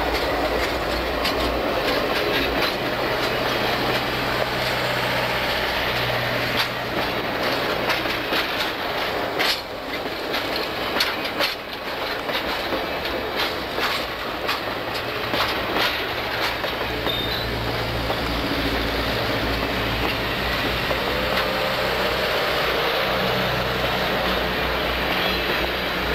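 Passenger train cars rolling past close by, their steel wheels clicking over the rail joints in a steady clickety-clack, with a faint wheel squeal near the end.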